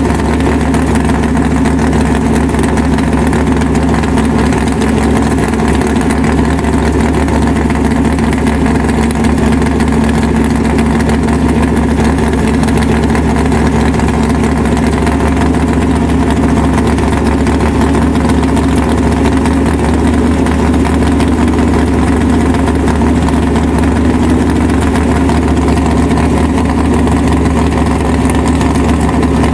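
An engine idling steadily at an unchanging pitch.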